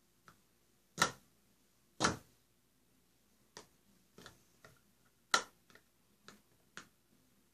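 Irregular sharp clicks and knocks from hands bumping and covering the phone that is recording. Three louder knocks come about a second in, two seconds in and past five seconds, with fainter taps between them.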